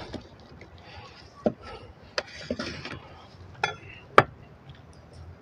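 Large kitchen knife slicing a cooked pork loin in an aluminium foil pan, with a few sharp knocks and clinks of the blade against the pan and the wooden board and a short rustle in between. The loudest knock comes a little past four seconds in.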